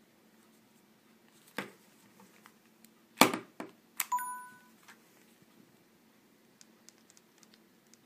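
Plastic handling sounds from a Nokia 5700's swivel body: a click, then a louder knock about three seconds in as the lower half is twisted round to the keypad. A click follows, with a short electronic beep from the phone, and faint key clicks near the end.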